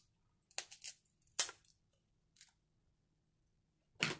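Snow crab leg shells cracking and snapping in the hands: a cluster of sharp cracks over the first second and a half, a faint one in the middle, and another near the end. The shells are not snapping cleanly.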